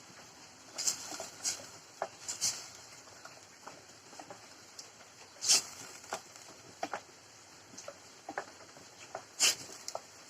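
Scattered light clicks and taps of kitchen utensils and containers being handled, with a few sharper clicks; the loudest come about halfway through and near the end.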